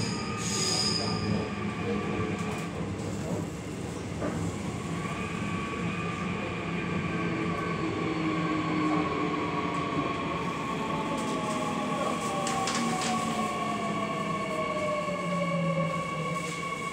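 Seoul Line 2 subway train heard from inside the car, running on the rails with a steady rumble and electric whine. Through the second half a whine glides slowly down in pitch as the train slows toward a station, with a few sharp clicks midway.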